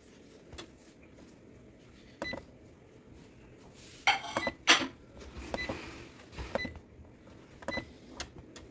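Buttons on an Epson WF-2850 printer's control panel pressed one after another, giving short clicks and brief beeps; the loudest pair of clicks comes about four seconds in.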